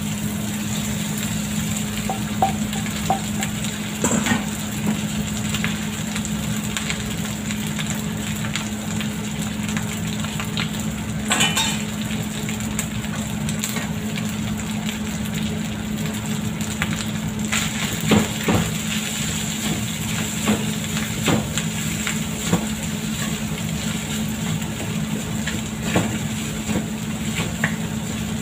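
Cooked rice frying in oil with garlic in a wok, a steady sizzle over a low hum, broken by scattered scrapes and knocks of a spoon and wooden spatula against the pan.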